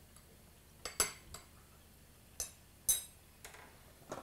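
Metal spoon clinking against a small glass bowl while mixing a dry spice blend: about half a dozen separate, unevenly spaced clinks with a short ring.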